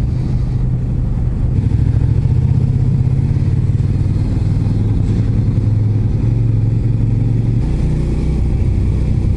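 Suzuki Gladius 400's V-twin engine running steadily while the motorcycle is under way, heard from the rider's position, with a slight change in the engine note near the end.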